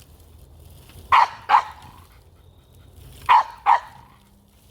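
A dog barking in two quick pairs, two barks about a second in and two more a couple of seconds later.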